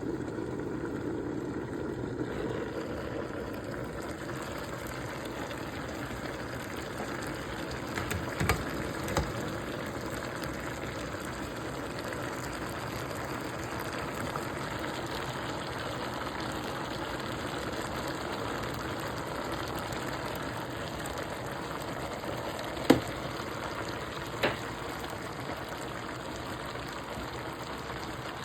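Pinakbet vegetables cooking in a pan, a steady sizzle throughout. A few sharp knocks cut through it: two close together about eight seconds in and two more near the end.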